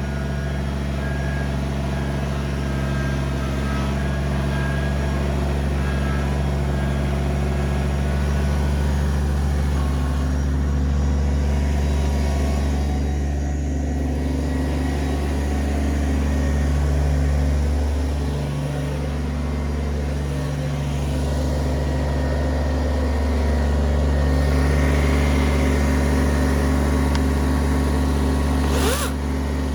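Kubota BX23S compact tractor's three-cylinder diesel engine running steadily, its pitch dipping briefly a few times. A short rising whine near the end.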